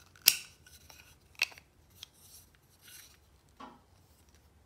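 Hard plastic clicking and knocking as a black plastic holder attachment is worked into the edge of a hard-plastic portable laptop desk: one sharp click about a quarter second in, then a few lighter clicks. The piece is sticking and will not turn into place.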